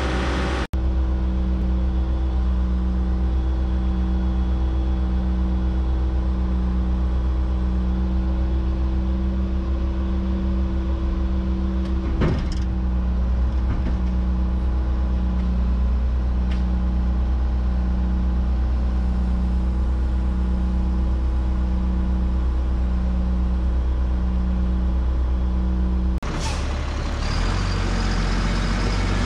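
Steady drone of a dump truck hauling an excavator on its trailer, engine and road noise with a slow regular pulse, heard from the excavator riding on the trailer. After a cut near the end, the truck's engine runs close by at a standstill.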